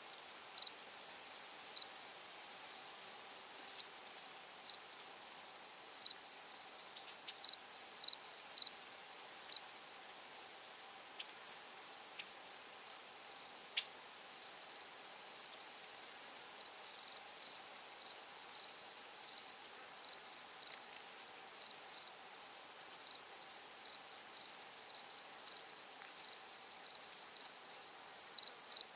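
Steady high-pitched trilling of an insect chorus.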